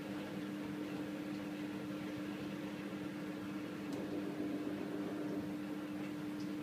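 Samsung washing machine running with its drum spinning: a steady motor hum with two low steady tones over an even whir.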